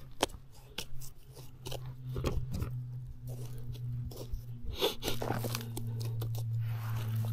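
Soil crunching and scraping in irregular bursts as a clump of dirt is brushed and broken apart by hand to free a buried find, over a steady low hum.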